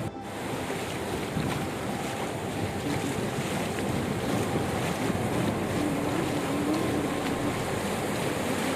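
Ocean waves washing on a beach, a steady rush, with wind buffeting the microphone. A faint wavering hum comes in about three seconds in.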